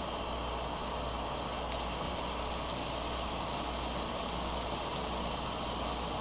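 Margarine melting and sizzling in a rectangular egg-roll pan over a low gas flame: a steady sizzle.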